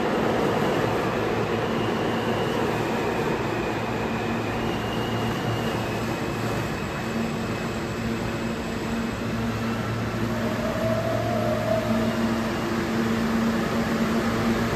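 R160A-1 subway train running steadily, with a continuous rumble of wheels on rail, a low hum and a faint thin whine.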